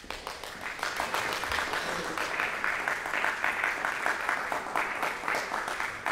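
Audience applauding: a dense patter of many hands clapping that builds over the first second and then holds steady.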